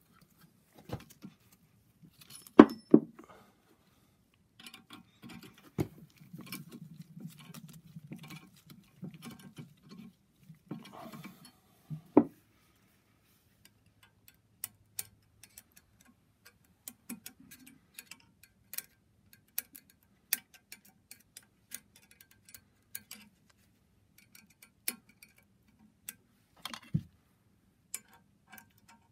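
Scattered metal clicks and knocks from a valve spring compressor and hand tools being worked on a BMW N54 aluminium cylinder head as its valves are taken out. The loudest knocks come about three seconds in, about twelve seconds in and near the end.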